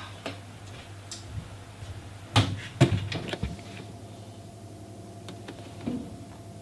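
A few sharp knocks and clatters of hard objects, bunched together around the middle, over a low steady hum. A faint steady tone comes in just after them.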